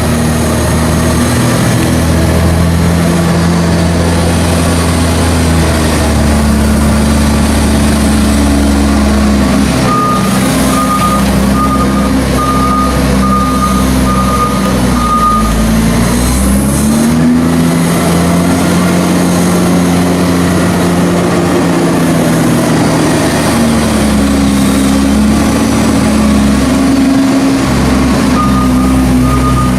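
A loader's diesel engine working hard as it drives back and forth over a maize silage clamp to roll and compact it, the engine note rising and falling with each change of direction. Its reversing beeper sounds steadily for about five seconds from about ten seconds in, and starts again near the end.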